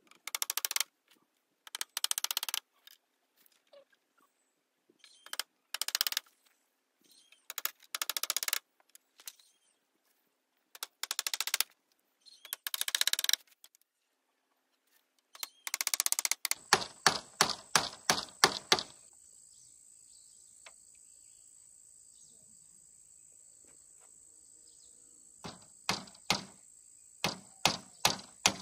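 Hand saw cutting wood in short rasping strokes, a burst every second or two. About halfway through, sharp knocks at about three a second take over, like nails being hammered, in two runs over a steady high-pitched drone.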